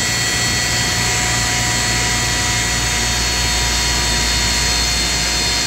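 Alternator test bench spinning a CS130-style alternator at high speed while it is loaded to its peak output of about 185 amps. It makes a steady whine of several pitches over a rush of fan air and a low hum.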